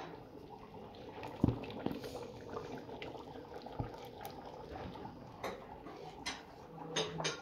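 Scattered light clicks and knocks, about eight of them at uneven spacing, over faint steady room noise with a low hum.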